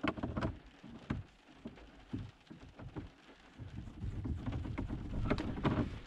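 Scattered clicks and light knocks of a carbon-fibre gear knob being turned by hand onto the threaded gear lever. A low rumble of rain on the car's roof grows in the second half.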